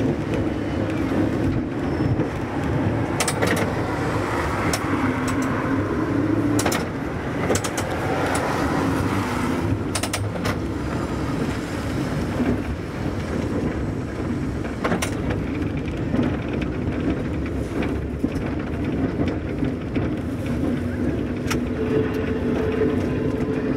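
Vintage 1904 ASEA-built SSB A2 tram running along its rails: a steady rumble with a low humming tone and scattered sharp clicks from the wheels on the track.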